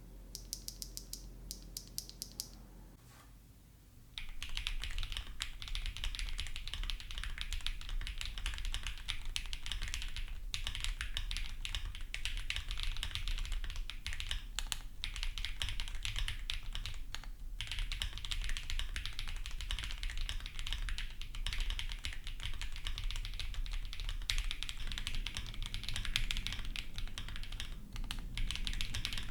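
Mechanical keyboard with pre-lubed Z1 linear switches, in a gasket-mounted aluminium case with a polycarbonate plate, being typed on fast and continuously. It starts about four seconds in after a short run of light, evenly spaced clicks, with a few brief pauses.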